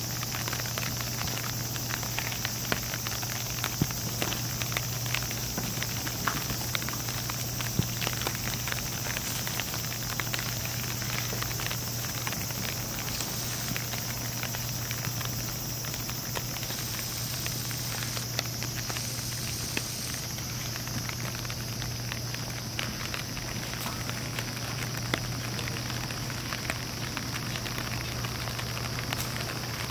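Steady outdoor ambience: a high insect drone and a steady low hum under many faint, irregular crackles and ticks.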